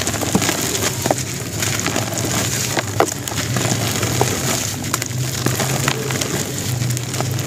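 Dry sand-cement lumps crumbling in the hands, grit and powder pattering down into a bowl, with many small sharp crackles as pieces break off. A steady low hum runs underneath.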